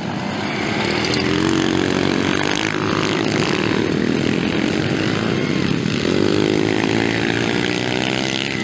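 Several small mini-motorcycle engines revving high as a pack of children's dirt bikes rides past. Their pitch climbs as they accelerate, once about a second in and again past the middle.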